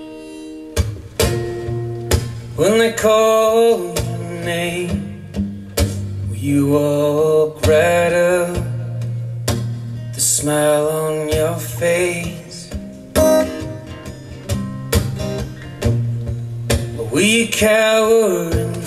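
Live acoustic recording of a male singer with strummed acoustic guitar, played back over hi-fi loudspeakers. The sung phrases come in and out several times over the steady guitar.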